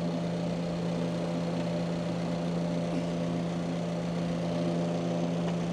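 2018 Subaru Impreza's 2.0-litre flat-four engine idling steadily, an even hum with no change in speed.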